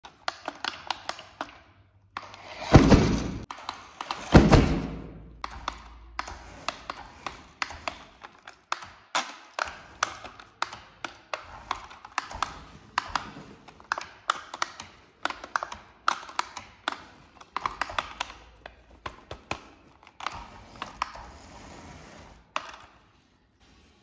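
Hard plastic clicks, taps and knocks from handling a toy RC tractor and its remote control, with two louder thunks about three and four and a half seconds in.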